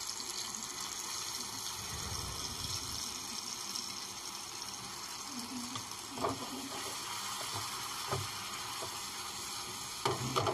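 Ginger-garlic paste sizzling steadily as it fries in hot oil in a pan, with a few short knocks past the middle and near the end.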